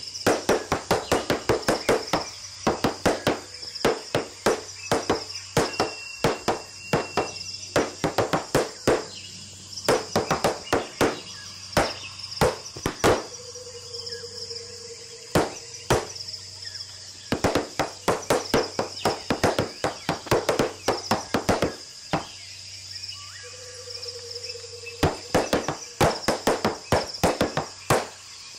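Tap shoes striking wooden boards in quick rhythmic runs of sharp clicks, with short pauses between phrases. A steady high insect chirring runs underneath.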